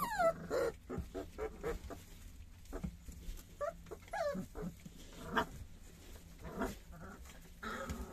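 Three-week-old puppies whimpering and yelping: short whines that fall in pitch, one right at the start and another about four seconds in, among brief squeaks and the scuffle of small paws on straw-strewn wooden boards.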